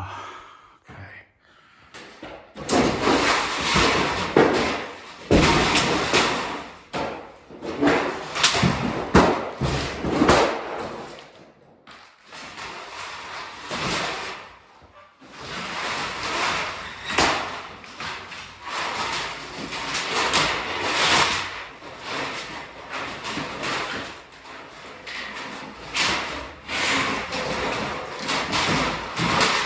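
Wall paneling being ripped off and handled: irregular cracking, scraping and banging that starts about two seconds in and goes on with short pauses.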